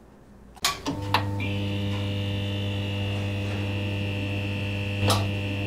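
Neon-sign sound effect for a logo outro: a couple of electric crackles as it flickers on, then a steady electrical buzzing hum with a high whine on top, and another crackling flicker near the end.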